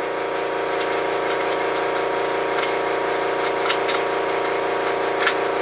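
Steady hum of a workshop machine's electric motor running, with a few light clicks and taps over it.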